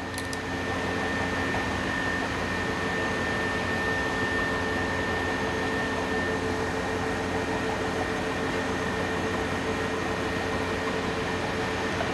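Steady whoosh and hum of running fan machinery, with a few constant tones over an even noise.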